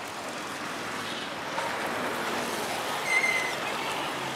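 Roadside street noise with small motorcycles riding past. About three seconds in there is a brief high-pitched tone.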